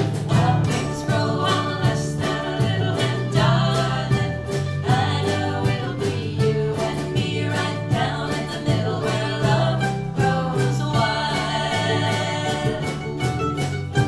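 Live acoustic band playing a song: women's voices singing over strummed ukuleles and acoustic guitar, with a steady strummed beat.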